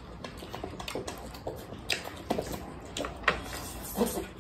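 Eating at a table: a scattered run of small clicks and taps from chopsticks and a spoon against bowls, with chewing.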